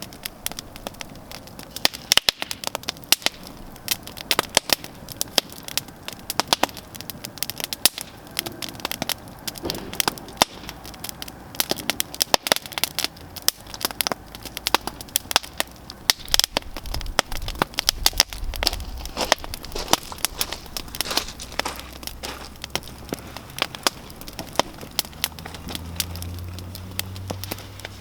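Outdoor wood campfire crackling, with frequent irregular sharp pops and snaps over a steady hiss of burning.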